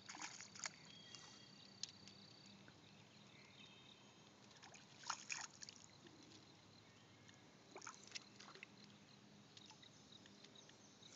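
Near silence with faint outdoor background, broken by a few brief splashes as a hooked fish thrashes at the water surface.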